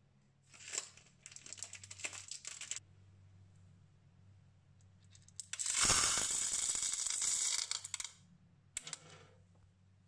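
Dried popcorn kernels pour from a plastic cup into the metal popping chamber of a Suntec POP-8618 hot air popcorn maker, a dense rattle lasting about two and a half seconds, starting about halfway through. Shorter clicks and clatters of plastic parts being handled come before it and once near the end.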